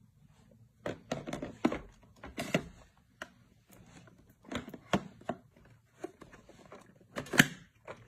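Irregular plastic knocks and clicks from a Proscenic M7 Pro robot vacuum being handled and moved by hand: a quick run of them about a second in, a few more around the middle, and one sharp, loudest knock near the end.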